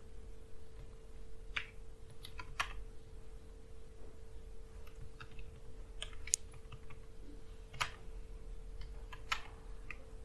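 Computer keyboard being typed on slowly: a dozen or so separate keystroke clicks with uneven pauses between them, over a faint steady hum.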